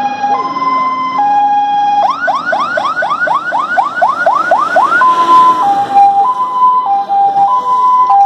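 Fire engine's electronic siren sounding a two-tone hi-lo, switching about two seconds in to a fast yelp of about four rising sweeps a second, then back to the hi-lo about five seconds in.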